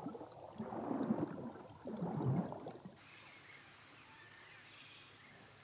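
Irregular low, noisy swells for about three seconds, then abruptly a steady high-pitched insect trill from crickets.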